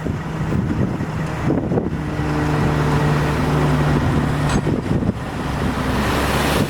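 A heavy vehicle engine picks up about two seconds in, holds a steady drone, and eases off near the end, with wind buffeting the microphone throughout.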